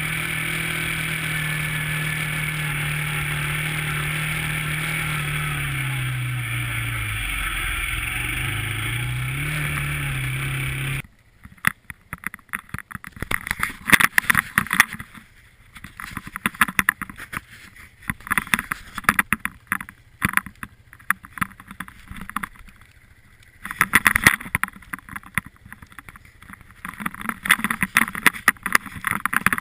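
Vehicle engine and road noise heard from inside a moving car: a steady drone that dips in pitch partway through and then rises again. After a sudden cut, wind buffets the microphone in irregular gusts with short lulls.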